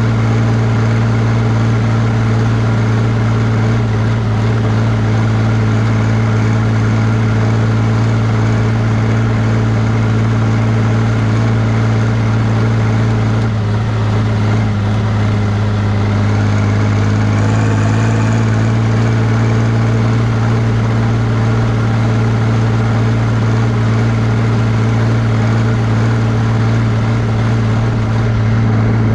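John Deere 3140's six-cylinder diesel engine running steadily as the tractor drives along the road towing a trailer, its note dipping and shifting briefly about halfway through.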